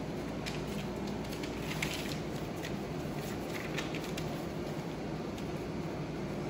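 Puppies' paws crinkling and rustling newspaper as they walk, small scattered crackles during the first few seconds, over a steady machine hum.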